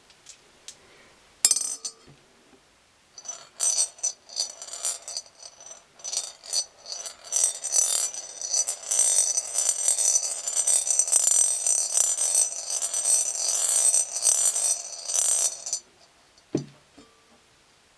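Toy gumball machine dispensing a gumball: a sharp click, then the gumball rattles and clinks quickly down the spiral track for about twelve seconds, stopping suddenly, followed by a single thud.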